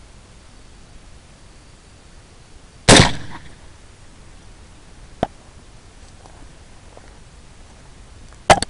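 Two rifle shots from a Noreen BN-36 semi-automatic rifle chambered in .270 Winchester, one about three seconds in and one near the end, each a loud crack that dies away quickly. A faint click falls between them.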